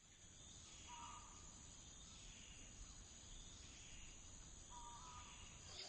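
Faint nature ambience fading in: insects chirring steadily in a high band, with a short whistled call twice, about a second in and near the end.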